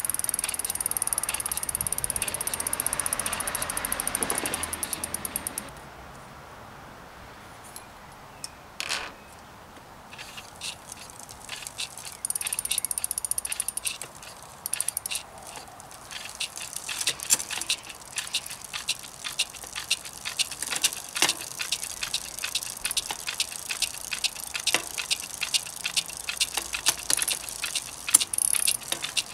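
Bicycle rear freewheel ticking rapidly as the rear wheel spins, in two spells, with irregular sharp clicks and knocks from hand work on the wheel and frame in between and afterwards.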